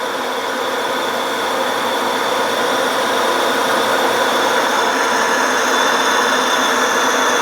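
Metal lathe running while a boring bar takes a heavy cut, about 60 thousandths deep, inside a pulley's bore: a steady cutting noise with a thin high whine, slowly getting louder.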